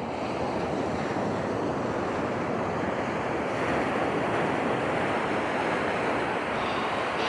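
Ocean surf breaking and washing up the beach in a steady rushing wash, with wind on the microphone.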